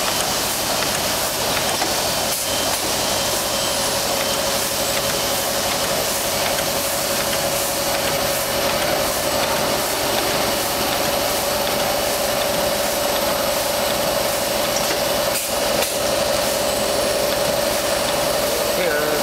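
Plastic bag-making machine (Hyplas HP-DBS-28ABSR-EC) running steadily: a continuous mechanical hiss and rumble with a constant whine, as the plastic film web feeds through its rollers.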